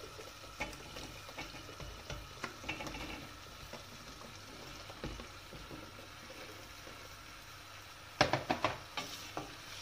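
Chopped leeks poured from a plastic basket into a stainless steel pot of sauce, with light rustling and scattered clicks over a faint sizzle. About eight seconds in, a wooden spoon stirring the leeks knocks sharply against the steel pot several times in quick succession, the loudest sounds here.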